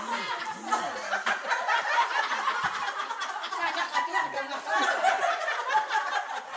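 Several women talking over one another, with chuckling and laughter among them.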